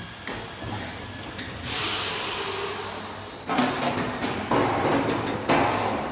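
Full-automatic servo blow molding machine for 5 L and 10 L bottles running through its cycle. About two seconds in there is a sudden loud hiss of air that fades over a second or so. From about halfway come several more sharp air blasts and clacks of the machine's pneumatic moving parts, over a faint steady hum.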